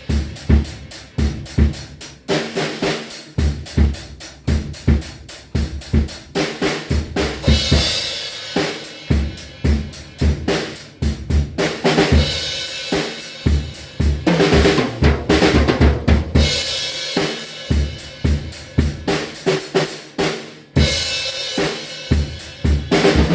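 A drum kit being played: a steady groove of bass drum and snare hits under hi-hat and cymbal wash, with busier fills along the way.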